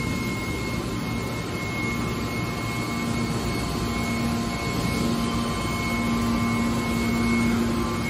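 Hydraulic scrap metal baler's power unit running: a steady motor-and-pump drone, with a low whine that sets in about three seconds in and comes and goes.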